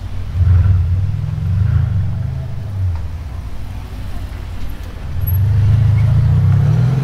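Engine and exhaust of a Brabus-tuned Mercedes-AMG, a low, loud note that swells twice: about half a second in for a couple of seconds, and again from about five seconds in, rising slightly in pitch the second time.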